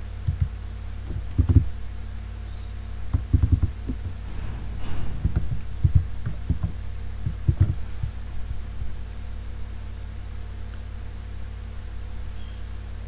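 Scattered dull thumps from a computer keyboard and mouse being used at the desk, a dozen or so spread irregularly, some in quick clusters. Under them runs a steady low hum.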